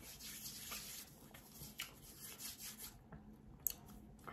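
Faint rubbing of hands together, palm against palm, stopping about three seconds in, with a small tick shortly after.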